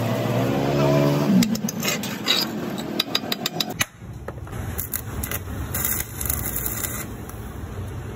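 A hammer striking the fresh weld seam on a compressor shell, knocking off slag: a run of sharp metallic taps, after a motor hum in the first second or so. A steady rough noise follows in the second half.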